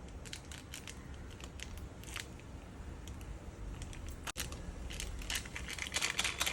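Faint crinkling and small clicks of a Maggi tastemaker seasoning sachet being opened and emptied over drained noodles.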